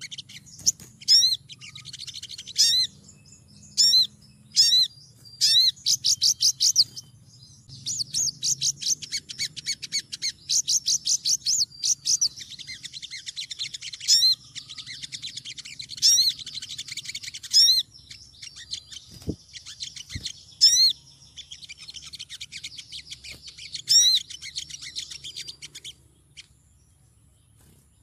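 Female olive-backed sunbird calling: loud, sharp rising notes one at a time every second or so, between long runs of rapid high twittering, stopping about two seconds before the end. This is the excited calling of a female in breeding condition calling for a male.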